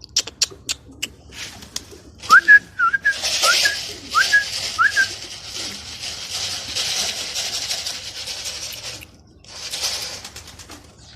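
A pigeon keeper gives about six short rising whistles to send his pigeons up, and a long rush of flapping wings follows as the flock takes off. A few sharp clicks come at the start.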